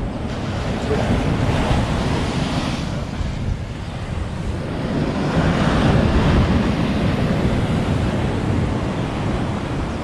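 Surf breaking on a sandy beach, surging louder twice, with wind buffeting the microphone.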